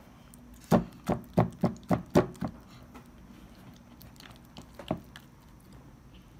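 Silicone spatula stirring a thick, sticky slime mixture that has not yet set, in a glass dish: a quick run of about six wet squishing strokes, then one more a couple of seconds later.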